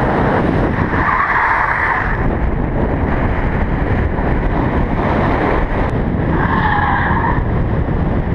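A car driven hard on a racetrack: loud, steady engine and road noise, with the tyres squealing twice, for about a second each time, once about a second in and again near the end.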